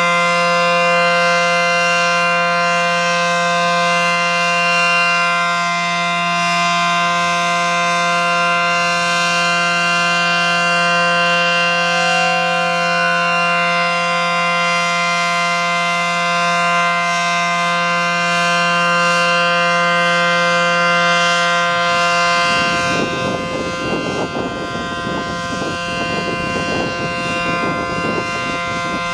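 ACA Allertor 125 rotating electromechanical siren with 9/12 dual-tone ports, sounding a steady full-alert tone: a loud, unwavering two-note chord. About 22 seconds in, the lower part of the sound turns rough and fluttering.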